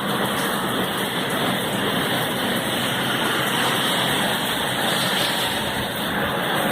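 Steady rain falling during a hurricane: a dense, even hiss.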